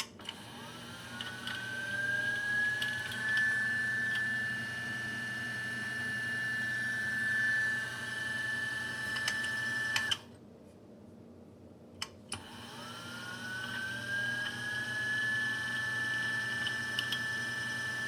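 Timemore Sculptor 078 electric coffee grinder motor spinning up with a rising whine and then running steadily, with sharp rattling ticks over the whine. About ten seconds in the motor stops abruptly. A single click follows, and the motor starts up again with the same rising whine.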